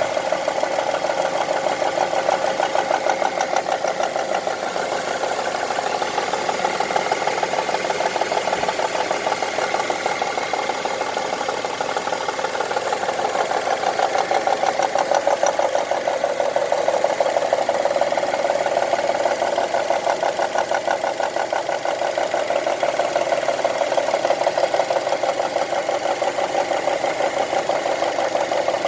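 2002 Honda CR-V engine idling with a fast, steady ticking that keeps time with the engine.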